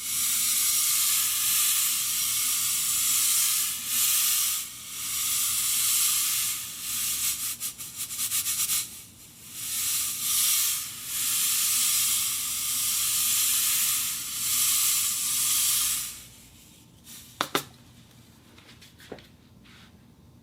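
Wire netting scraped against an iron plate: a continuous high, rasping scrape in long strokes with short breaks, stopping about 16 seconds in. A few sharp metallic clicks follow.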